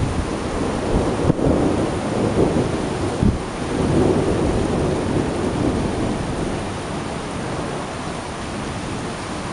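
Steady rain with a long, rolling rumble of thunder that swells in the first half and eases toward the end.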